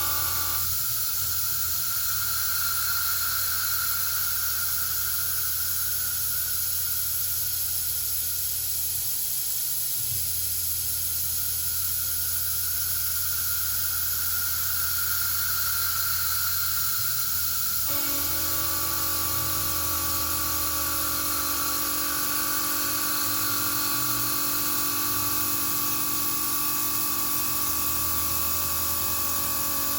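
CNC mill machining, with a steady spray hiss over several steady whining tones that shift together about a second in and again around 18 seconds.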